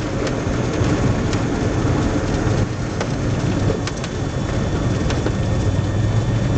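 Single-engine light aircraft's piston engine idling with its propeller turning slowly during the landing rollout, heard from inside the cabin as a steady low hum under a rushing noise, with scattered rattles and clicks.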